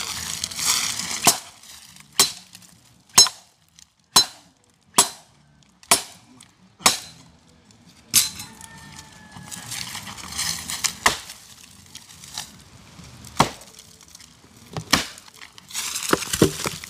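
Knife chopping on a board: single sharp strikes with a short ring, about one a second at first and then more spaced out.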